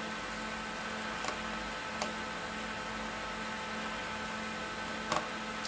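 Steady background hiss and hum, with a few small sharp clicks as laptop parts are handled during reassembly: once early, once about two seconds in, and a quick double click near the end.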